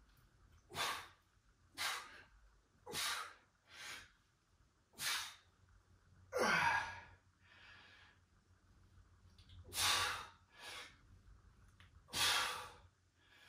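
A man breathing hard during push-ups, with a sharp breath about once a second. About six and a half seconds in comes one longer, voiced out-breath that falls in pitch.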